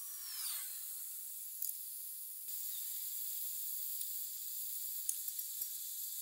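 Handheld gas torch burning with a steady hiss while it heats a stuck bearing race on an axle shaft, with a few faint clicks near the end.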